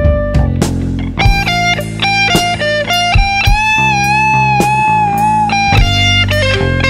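Blues band playing: an electric guitar solo over bass guitar and drums, with a long held, wavering note in the middle of the phrase.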